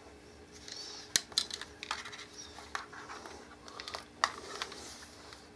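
Handling noise from camera-rig accessories being fitted together: a scatter of sharp clicks and small knocks with light rustling, the loudest clicks about a second in and about four seconds in.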